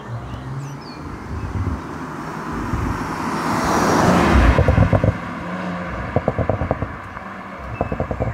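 A 2020 Audi RS4 Avant's twin-turbo V6 driving past, swelling to its loudest about halfway through and then fading. In the second half come three short bursts of rapid crackling.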